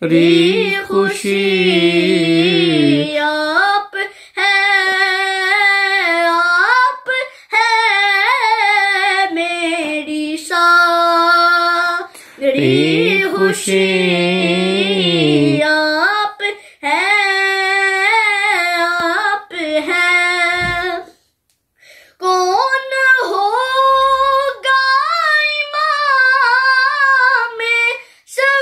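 A boy singing an Urdu devotional song alone, without accompaniment, in long held phrases with short breaths between them and a pause of about a second a little past two-thirds of the way through.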